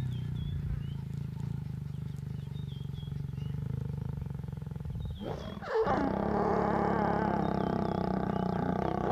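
Lions growling while mating: a low, rumbling growl for the first five seconds, then from about six seconds in a louder, higher snarl, the lioness baring her teeth at the male.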